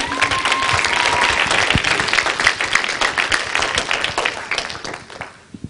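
Audience applauding: dense, even clapping that dies away near the end, with one short high held call over it at the start.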